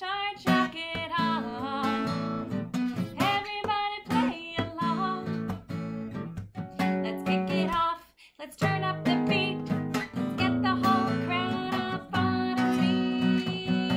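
Acoustic guitar strummed in a steady rhythm, with a woman singing along. The music breaks off briefly about eight seconds in, then picks up again.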